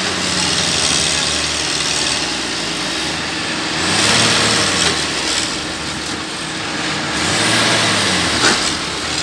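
Tractor engine running, revving up about four seconds in and again near eight seconds. A brief sharp knock comes near the end.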